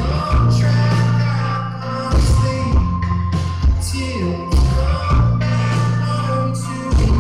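Live band playing a pop-rock song: sustained bass notes and a steady drum beat under guitars and vocals.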